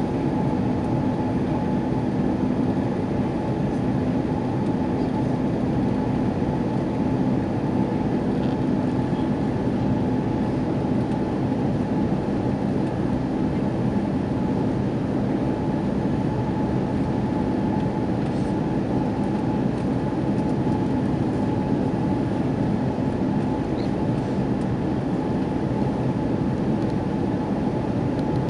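Airbus A330-300 jet engines running at raised thrust, heard inside the cabin: a steady hum with a whine that neither rises nor falls. It is an engine run-up while holding on the runway, done to clear ice from the engines.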